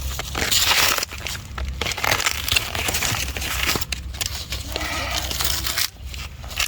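Crunching and rustling of plant material being handled, in irregular noisy bursts.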